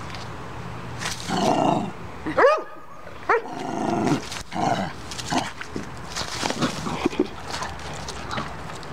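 A Boston terrier–pug mix dog barking and growling in play over a ball: a string of short barks starting about a second in, with two sharp high yelps that rise and fall in pitch near the middle.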